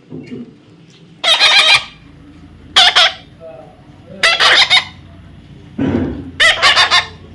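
A parrot screeching: four loud, harsh calls about a second and a half apart, the last broken into several quick pulses.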